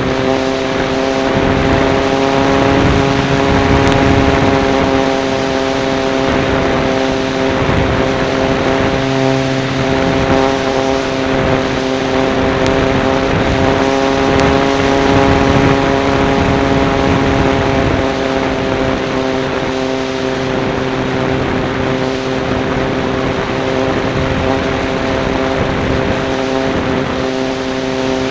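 Radio-controlled model Cessna's motor and propeller running at a steady, unchanging pitch, heard up close from a camera mounted on the plane, with rushing air noise underneath.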